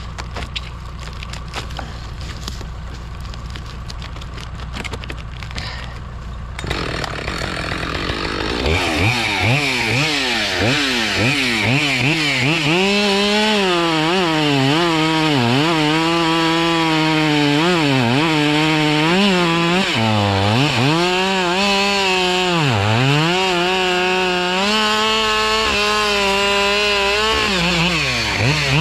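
Gas chainsaw starting up about seven seconds in, then cutting through a felled log, its engine pitch dipping repeatedly as the chain bogs in the wood and recovering between dips. Before the saw starts there is a low steady machinery hum.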